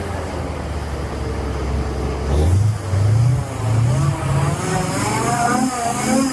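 An engine running steadily, then revving up in several short rising surges from about two seconds in, with a higher wavering tone joining near the end.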